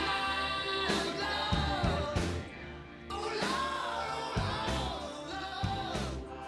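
Background music: a rock/pop song with a singing voice over a steady beat, dipping briefly about halfway through.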